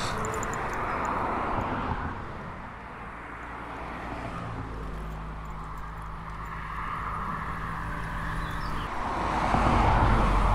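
Road traffic noise with a low wind rumble on the microphone. A steady engine hum comes in about halfway and cuts off suddenly a few seconds later, and the rushing noise swells again near the end.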